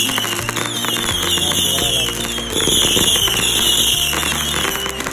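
Consumer fireworks crackling and popping over background music, with a run of falling whistling tones about once a second.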